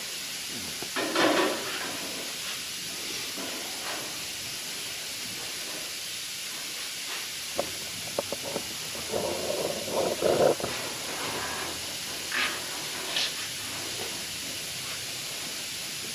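Steady hiss with scattered light clicks, taps and short rubbing sounds, busiest a little past halfway through, as a sheet-metal patch panel is handled and held up against a truck fender.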